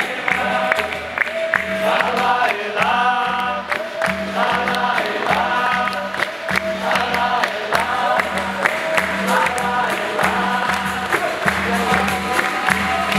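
Capoeira roda music: a group singing together over berimbau, pandeiro and drum, with a steady rhythmic beat.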